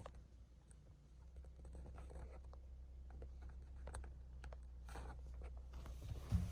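Faint scattered clicks and light scraping of hands handling steering wheel parts, over a low steady hum.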